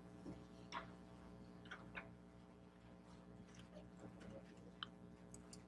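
Near silence over a faint low hum, broken by scattered soft clicks and rustles of a Bible's pages being turned and handled on a lectern.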